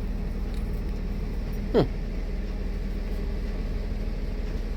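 Steady low mechanical hum with a few held tones, such as a ventilation or air-conditioning unit makes. A short falling tone cuts across it about two seconds in.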